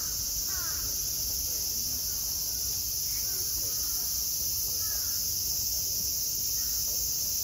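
A dense chorus of summer cicadas, a continuous high-pitched buzzing that holds steady throughout, with a few short falling calls in the background.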